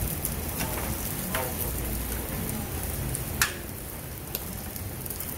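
Pork sizzling on a tabletop grill: a steady hiss sprinkled with small crackles, with one sharp click about three and a half seconds in.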